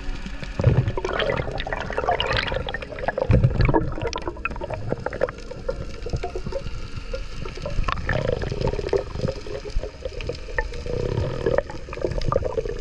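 Underwater water noise picked up by a diver's camera: muffled rushing and bubbling as the diver swims up toward the surface, with many sharp crackling clicks and a few deeper surges of moving water.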